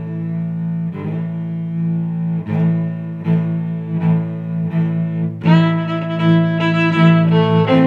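Background music on strings: long sustained notes changing about once a second, growing fuller and brighter about two-thirds of the way through.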